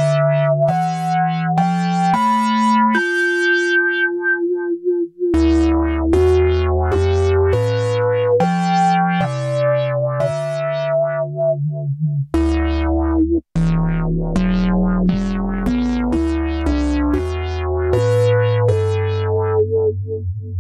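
Novation Circuit Tracks groovebox playing a synth preset: a sequenced melody of held, keyboard-like notes changing about every two-thirds of a second, with a low bass line joining about five seconds in.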